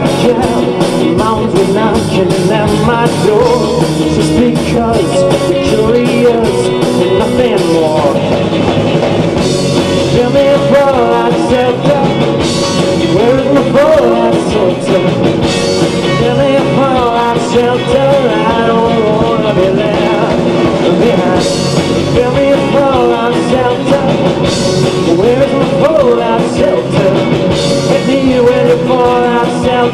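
A live rock band playing loud, with electric guitars and a drum kit. Cymbal crashes come every few seconds from about ten seconds in.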